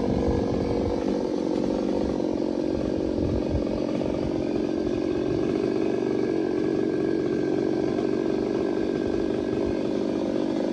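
Chainsaw running steadily at speed, cutting into a large tree trunk.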